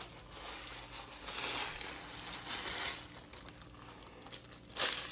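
Plastic wrapper of a Maruchan instant ramen packet crinkling as the crushed noodles are shaken out into a plastic bowl, in uneven rustling stretches with a louder rustle near the end.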